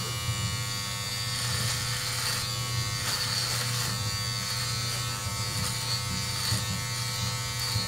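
Braun All-in-One Series 5 electric hair trimmer, fitted with a length guard, running with a steady buzz while it is passed through short hair on the head, with faint crackles as the blades cut.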